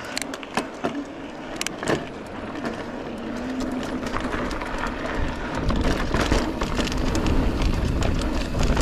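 Polygon Siskiu T7 mountain bike rolling downhill on a dirt trail: tyres crunching over the ground and the bike rattling and clicking over bumps. Wind buffeting the microphone grows stronger about halfway in as speed builds.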